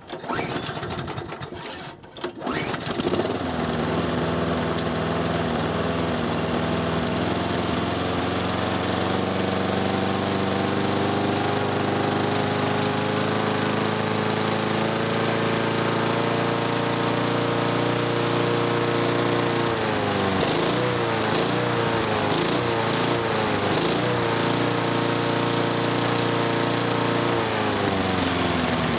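A 6 hp Briggs & Stratton single-cylinder mower engine is running with its speed brought up slowly from low. Its pitch climbs gradually for about fifteen seconds, dips and recovers a few times about twenty seconds in, then holds at a higher speed. The governor linkage and spring have been altered so the engine can run faster.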